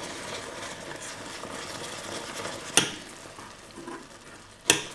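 A spoon stirring a caramel and soy-cream mixture in a stainless-steel saucepan over a soft steady sizzle, with two sharp clinks of the spoon against the pot, one midway and one near the end.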